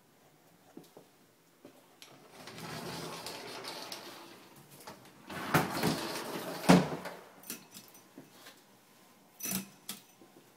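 A closet door being opened: a scraping rumble for a few seconds, then several sharp knocks.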